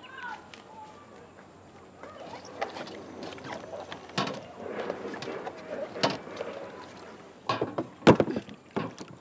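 Laundry being washed by hand in metal basins: water sloshing and splashing as clothes are worked in the water. Several sharp hits come through, the loudest about eight seconds in.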